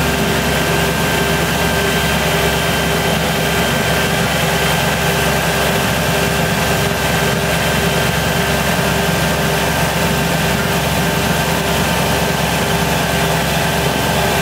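Tractor engine running at a steady, unchanging speed while plowing snow, heard close up from the driver's seat as a constant drone.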